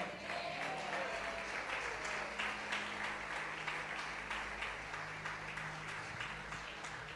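A congregation applauding, many claps blending together and fading gradually.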